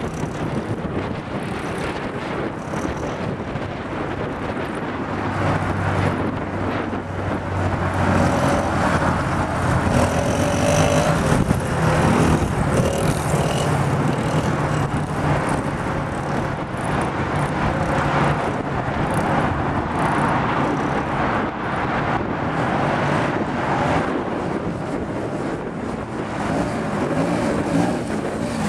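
Small engines of a youth ATV quad and a mini dirt bike running as they ride around a dirt lot. A steady engine hum is clearest from about five seconds in, shifts in pitch as the riders throttle up and back, and grows louder near the end as the quad comes close.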